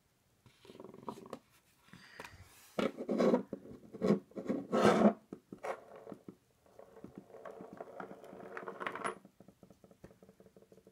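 Small metal lock parts being handled and sorted by hand during reassembly of a pin-tumbler lock: irregular clinks, scrapes and rustling, loudest a few seconds in.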